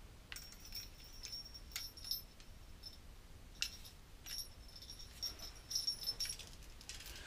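Small fishing-rod bell jingling faintly in short tinkles among light handling clicks as the rod is turned and moved.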